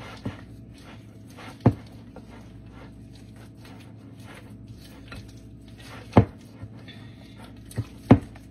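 A spatula stirring a thick cream cheese and shredded chicken mixture in a glass mixing bowl: soft scraping and squishing, with a few sharp knocks of the utensil against the bowl, the loudest about six and eight seconds in.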